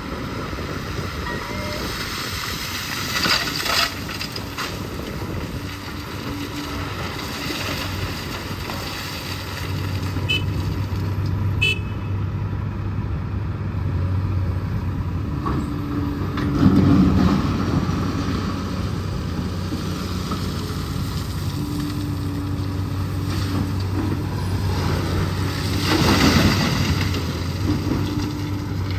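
Heavy diesel truck engine running with a steady low drone that grows stronger about a third of the way through, with two louder swells of noise later on.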